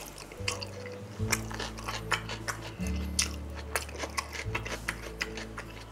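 Background music of slow sustained low notes changing every second or two, over close-miked wet chewing and lip-smacking clicks as chewy grilled pork skin is eaten.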